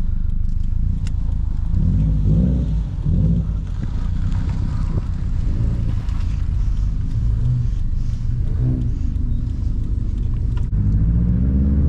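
A car engine runs with its deep drone heard from inside the car while driving. The revs rise and fall briefly a couple of times.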